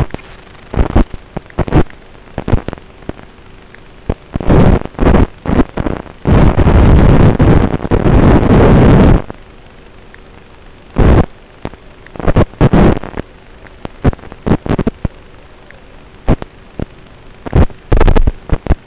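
Loud bursts of static hiss from an analog FPV video receiver's audio channel, coming and going irregularly as the radio signal breaks up, with one long burst of about three seconds in the middle. Between bursts a quieter hiss with a faint steady hum remains.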